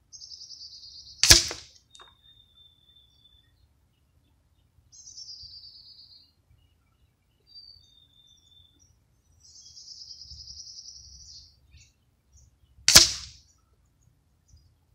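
Two sharp shots from a custom Crosman 2400KT .177 air gun, about a second in and near the end, roughly twelve seconds apart. Between them, birds sing faint high trills and a thin whistle.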